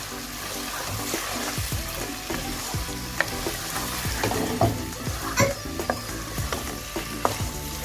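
Pumpkin and prawn fry sizzling in a non-stick frying pan as a wooden spatula stirs and scrapes it. Sharp knocks of the spatula against the pan come throughout, loudest around the middle.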